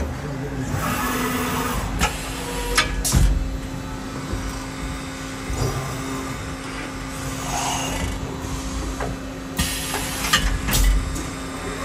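CNC milling machine running between cuts: a steady hum with several sharp clunks a couple of seconds in, then a short hiss and more clunks near the end.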